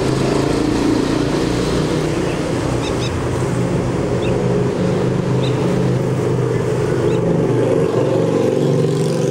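Steady engine drone, with a few faint, short high chirps between about three and five seconds in.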